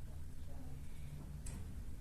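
A single sharp click about one and a half seconds in, over a low steady hum.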